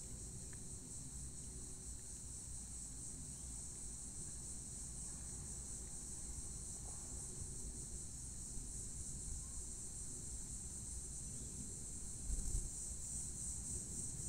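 Steady high-pitched insect chorus, with a low rumble underneath and a brief low thump about twelve seconds in.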